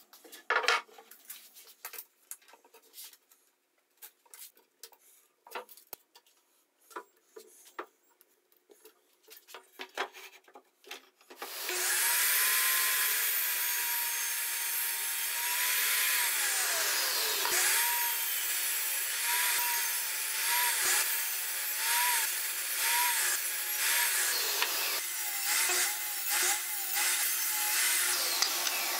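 Wooden 2x4 boards handled and set down on a workbench, giving scattered clicks and knocks. About 11 seconds in, a Pro-Tech miter saw starts and runs loudly. Its motor whine dips again and again as the blade cuts through Douglas fir boards, crosscutting them into short blocks.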